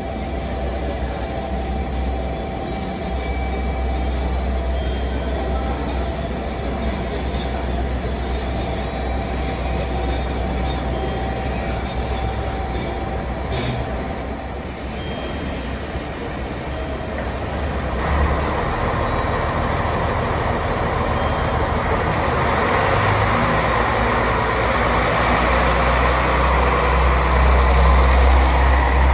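KiHa 147 diesel railcar pulling into the platform and drawing alongside, its diesel engine rumbling. The sound grows louder from about two-thirds of the way through as the cars come close.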